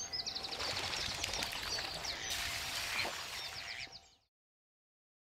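Small birds chirping and trilling in quick high strokes over a steady outdoor hiss; the sound cuts off suddenly about four seconds in.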